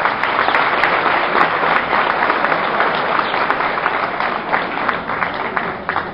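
Crowd of people applauding, steady clapping that dies down near the end.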